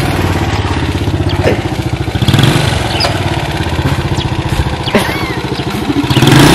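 Small commuter motorcycle's engine idling with a steady low putter.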